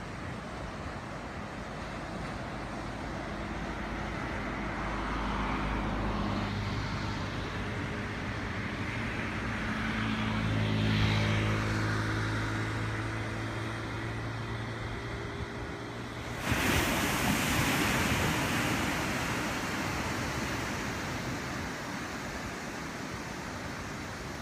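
Surf washing on a beach with wind on the microphone. In the middle, a motor vehicle's engine hum swells and fades. About sixteen seconds in, a sudden louder rush of noise cuts in and slowly dies away.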